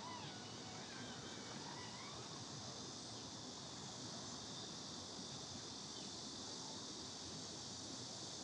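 Steady high-pitched insect chorus, with a few short gliding bird chirps in the first couple of seconds.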